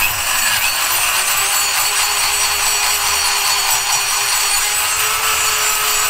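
A rotary grinder cutting the ports of a Mazda F2T cylinder head during pocket porting: a steady, even grinding with a faint whine underneath, starting abruptly just before and holding without a break.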